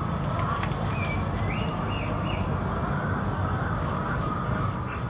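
Outdoor ambience: a steady insect drone with a few short bird chirps a little after a second in, over a steady low rumble.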